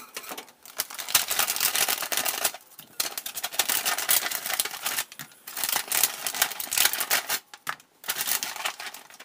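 Plastic bag of dried shiitake mushrooms crinkling, with the hard dried mushrooms rattling inside as they are shaken out into a bowl, in about four crackling bursts with short pauses between.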